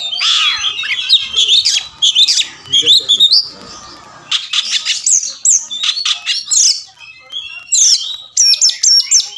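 Oriental magpie-robin singing a fast, varied song of clear whistles and sharp chirps, with a short pause about four seconds in.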